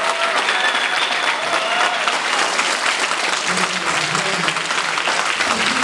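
Crowd applauding, a dense patter of clapping, with voices calling out over it.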